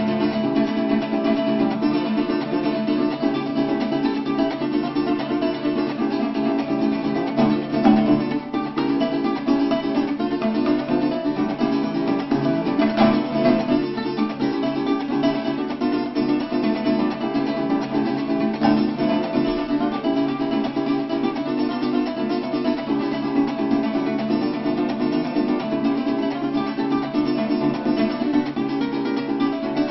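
Bandola and cuatro playing a tune together, the bandola picking the melody over the cuatro's accompaniment, without a break.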